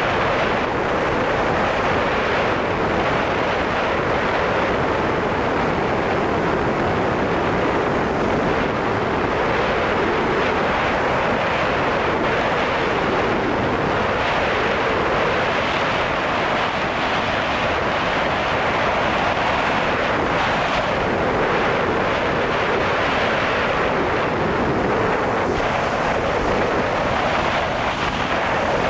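Steady rushing noise of airflow and propeller wash on the onboard camera microphone of a flying FPV drone, even in level throughout.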